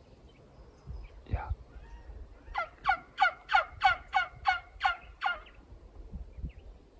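A series of about nine turkey yelps, evenly spaced at roughly three a second, each note breaking downward in pitch.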